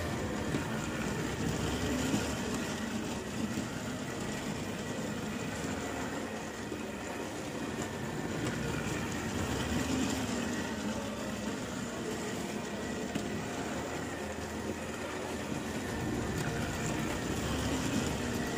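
Battery-powered toy Thomas train running around plastic track: its small electric motor whirring steadily as the locomotive pulls its wagons, getting louder as it passes close, about ten seconds in and again near the end.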